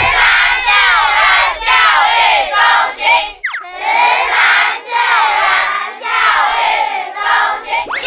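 A group of children's voices shouting and cheering together in loud bursts. About three and a half seconds in they break off briefly for a quick rising tone.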